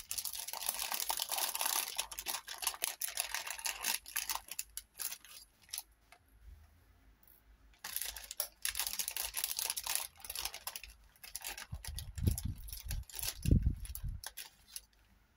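Rustling and light clicking of small craft pieces being handled and sorted, in two spells with a short lull between. Two low thumps come near the end.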